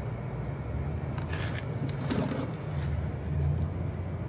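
A steady low rumble, like an engine running, with a couple of brief clattering noises about a second and two seconds in.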